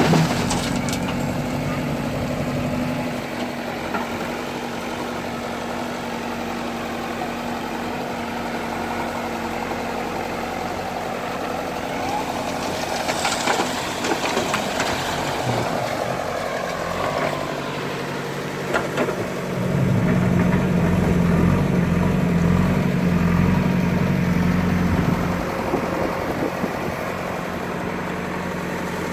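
Backhoe loader's diesel engine running steadily, revving up louder for several seconds about two-thirds of the way through, then settling back, with a few short clatters in the middle.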